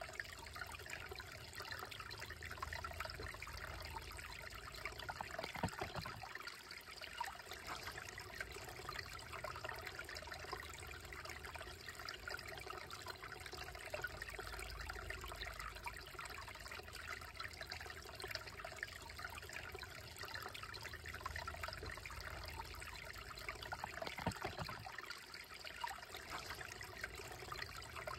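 Slow, shallow creek trickling over rocks: a steady watery rush, with two brief louder spots in the flow, about six seconds in and again a few seconds before the end.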